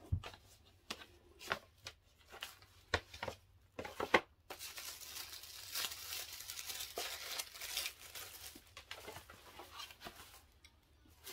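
A cardboard gift box being handled: a few sharp taps and knocks, then from about four and a half seconds in, several seconds of crinkling paper rustle as it is opened, thinning out toward the end.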